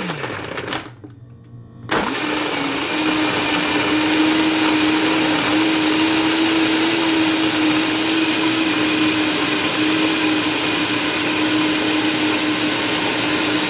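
Countertop blender blending ice with pineapple juice and cream of coconut into a smooth drink. The motor winds down just at the start, then is switched back on about two seconds in and runs steadily at high speed with a steady hum, winding down again at the end.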